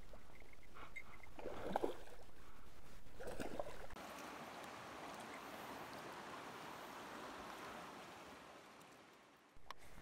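River water splashing around a hooked fish as it is brought in, with a few louder splashes in the first four seconds. About four seconds in this gives way to an even rush of water noise that fades out near the end.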